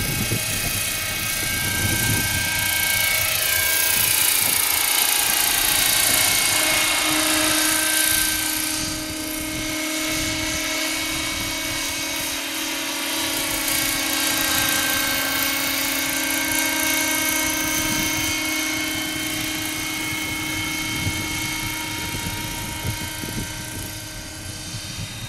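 Electric RC scale helicopter modelled on the Aérospatiale SA 315B Lama, in flight: the steady whine of its electric motor and gears over the whir of the rotor blades. It is loudest a few seconds in and drops off a little after about eight seconds, with its pitch slowly shifting.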